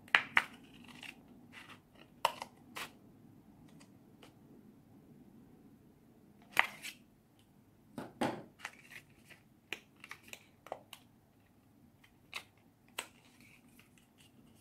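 Scissors snipping through a folded paper plate: a few sharp crunching cuts in the first three seconds and another about six and a half seconds in, then a knock about eight seconds in and light clicks and rustles of the stiff paper plate being handled and opened out.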